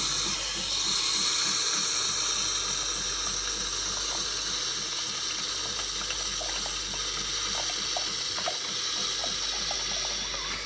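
Jura Z10 coffee machine dispensing hot milk into a glass for a latte macchiato: a steady hiss with a fast, even pulsing of the machine's pump underneath.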